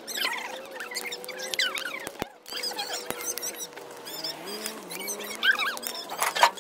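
Scrap-lumber bonfire crackling and popping, with many short high squeaks and whistles from the burning boards.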